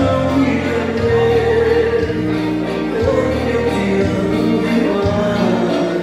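Dance music with singing, steady and loud, with a bass line that moves to a new note about once a second.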